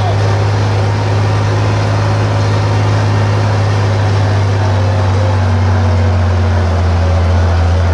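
John Deere 4020 tractor's six-cylinder engine running steadily under road load, a loud low drone. Its pitch eases slightly lower near the end.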